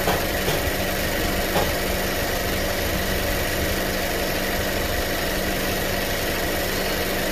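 Honda Civic engine idling steadily, with the air conditioning on maximum and the lights on as electrical load, during a charging-system load test.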